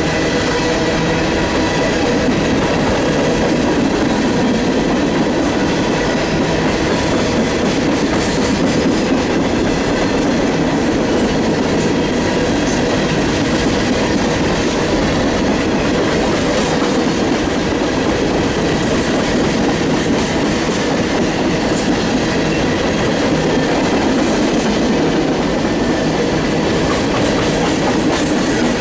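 Norfolk Southern freight train rolling past close by: a steady loud noise of wheels on the rails that does not let up.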